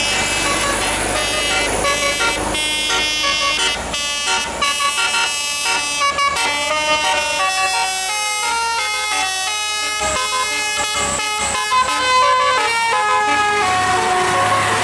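Bus telolet musical air horn playing a fast melody of stepped notes, one note after another, over the low sound of a vehicle engine.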